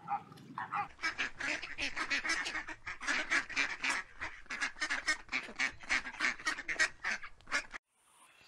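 Waterfowl honking in quick, repeated calls, several a second, that stop abruptly near the end.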